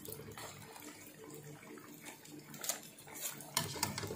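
Kachori dough frying in a kadhai of hot oil, a steady sizzle, with several sharp metal clinks of a utensil against the pan, mostly in the second half.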